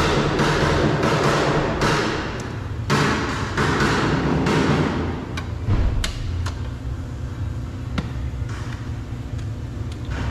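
Handling noise from work on a car door mirror and its wiring: rustling scrapes in the first half, then several sharp plastic clicks and knocks in the second half, over a steady low hum.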